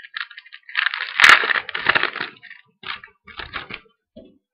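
Foil trading-card pack being torn open and its wrapper crinkled: a loud crackling rip a little over a second in, then a few shorter crinkles.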